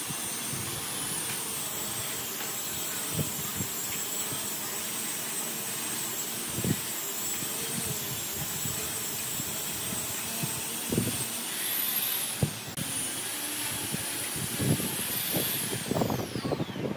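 A steady hiss with a thin, high, wavering whine that rises and drops away about two-thirds through and sweeps down near the end. Under it come a few soft knocks of a steel ruler and pen being handled on a pine board.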